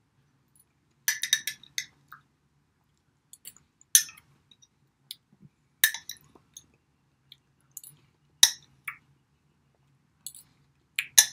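A metal spoon clinking against the inside of a glass salsa jar as salsa is scooped out: a run of short sharp clinks about a second in, then single clinks every second or two.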